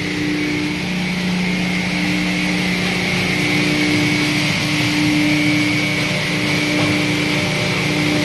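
Dual-shaft hammer mill running steadily: a dense, even machine noise with a low hum and a high-pitched whine over it.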